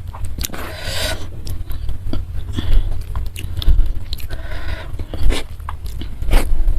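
A person chewing and biting food close to the microphone: irregular mouth clicks and a few louder, noisy bursts of chewing, over a steady low hum.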